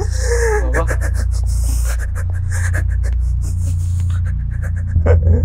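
A man crying: a drawn-out wail in the first second, then broken sobs and gasping breaths. A steady low musical drone sits underneath, and a deeper music tone swells in near the end.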